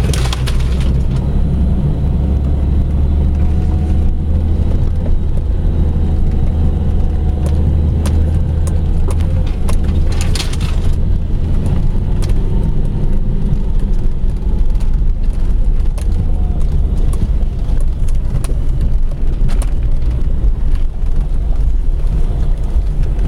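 Jeep Grand Cherokee driving off road: a steady low engine and tyre rumble, with a few sharp knocks or rattles, the clearest about ten seconds in.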